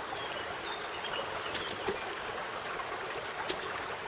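Steady rushing of a mountain stream, with a few faint, sharp clicks in the middle.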